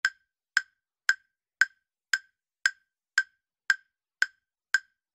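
Countdown timer sound effect: ten identical sharp, dry ticks at an even pace of about two a second.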